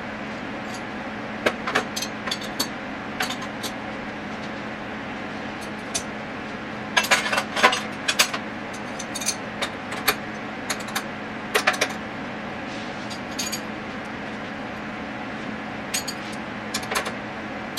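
Dishes and cutlery clinking and clattering in scattered sharp knocks, busiest about seven seconds in and again near twelve seconds, over a steady low hum.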